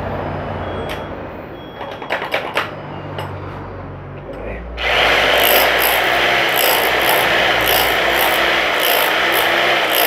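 Electric rotary hammer drill switched on about five seconds in and running unloaded with its bit in the air: a loud steady motor-and-hammer noise, with a faint pulsing in the high hiss about twice a second. The tool has just been repaired and is being test-run. Before it starts there are a few knocks as the tool is handled.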